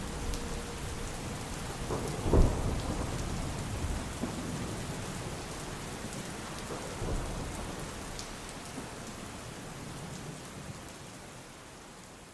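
Steady rain with thunder: a loud clap about two seconds in and a smaller rumble around seven seconds, the whole fading out toward the end.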